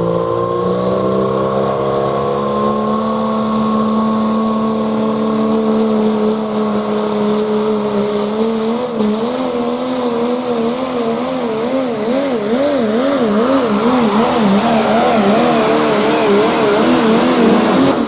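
Ford Super Duty pro stock diesel pulling truck running at full throttle while dragging a weight-transfer sled, its engine note loud and steady. From about halfway through, the engine pitch wavers rapidly up and down, about two to three times a second.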